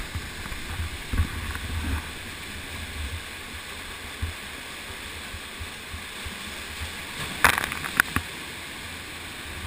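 Waterfall pouring into a pool, a steady rush of water, with a few sharp knocks about three quarters of the way through.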